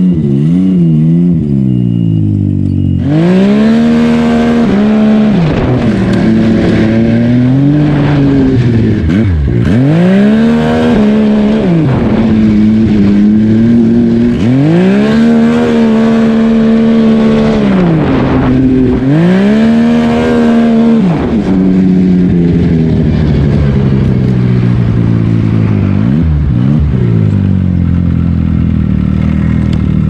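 Turbocharged Yamaha Sidewinder snowmobile engine revving hard and backing off over and over as the sled accelerates, its pitch climbing and dropping every second or two over a rushing noise. In the last third it settles to a lower, steadier drone.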